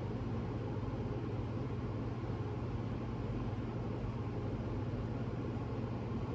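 Steady low hum with an even hiss over it, unchanging throughout: background room noise.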